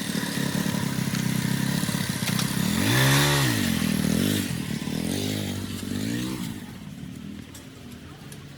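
An engine running, revved up and back down sharply once and then blipped a few more times with smaller rises, before fading out.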